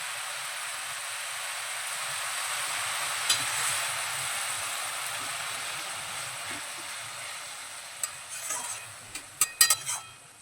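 Banana flower and potato curry sizzling in a pan after a little water has been added, the sizzle slowly dying down. Near the end a few sharp knocks of a spoon or spatula against the pan.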